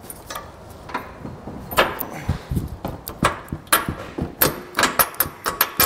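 Metal clinks and knocks from a steel tow bar base plate and a subframe bolt being handled and worked up into position. The knocks are irregular and come faster over the last couple of seconds.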